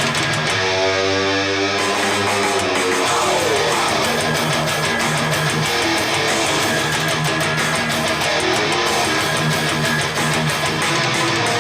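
Guitar-driven rock music played back through S90e loudspeakers with Alphard mid and treble drivers, recorded by microphone in the room. There is a short rising pitch sweep about a second in.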